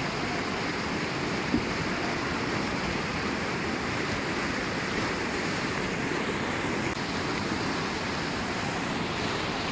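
River rapids rushing steadily, fast whitewater churning over and around rocks. There is one brief knock about a second and a half in.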